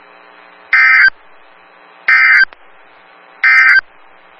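EAS end-of-message data bursts on a NOAA Weather Radio broadcast: three short, loud buzzing digital tone bursts about 1.3 seconds apart, closing the weekly test. Faint steady radio hiss lies between them.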